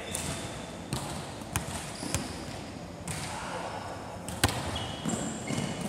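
Volleyball bounced three times on a wooden sports-hall floor, about every half second, then a single louder ball smack about four seconds in, all echoing in a large hall. Short shoe squeaks on the court follow near the end.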